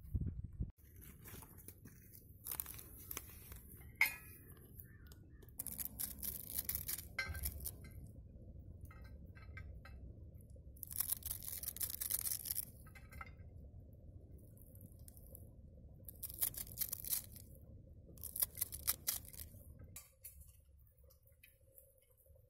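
Small knife cutting fresh coriander against a steel plate: crisp, crunching cuts in several short spells of a second or two each, with a light clink of the blade on the metal. A low rumble runs underneath and stops near the end.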